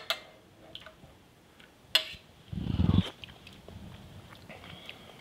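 A single sharp clink of a spoon about two seconds in, then a short low rumbling sound as the finished pan gravy is tasted from the spoon. Faint small ticks of utensils lie between.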